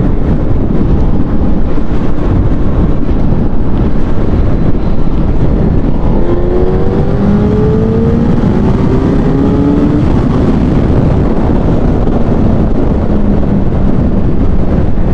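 Suzuki Hayabusa's inline-four engine running at highway speed under heavy wind noise on the microphone. Its note rises steadily for a few seconds about midway, then settles lower and steady.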